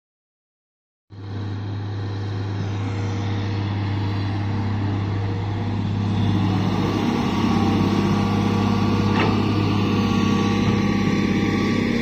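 Hitachi Zaxis excavator's diesel engine running steadily with a low hum. It starts after about a second of silence, and there is a single sharp click about nine seconds in.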